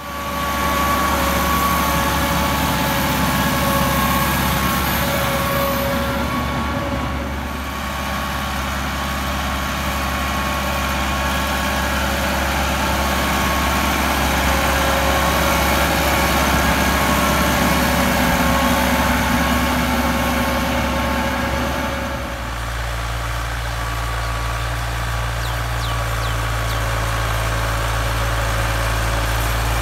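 Massey Ferguson 385's four-cylinder diesel engine running steadily under load, pulling a rotavator through dry soil. About 22 seconds in, the sound cuts to a Ford 4610's three-cylinder diesel working a rotavator under load.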